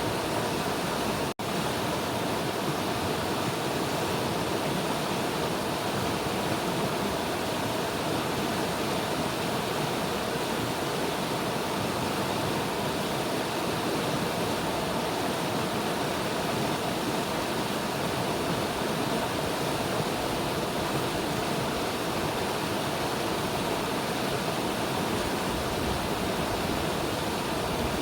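River water rushing steadily, an even full hiss. It cuts out for an instant about a second in.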